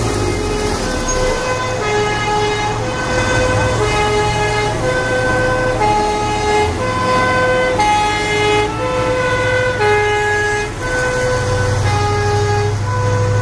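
Fire engine two-tone sirens sounding, stepping back and forth between high and low notes, each held for under a second, over the steady low running of truck engines.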